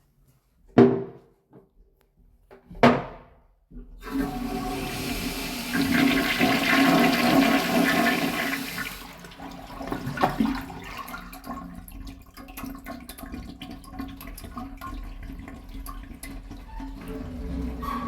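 Two sharp knocks, then a Luvue toilet flushing: a loud rush of water for about five seconds that drops to a quieter running of water as the tank refills.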